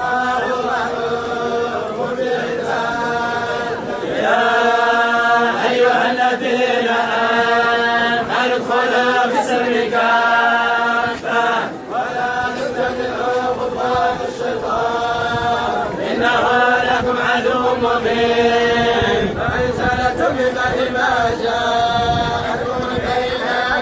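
A large group of men chanting a Quran recitation together in unison, long drawn-out melodic phrases over a steady held note.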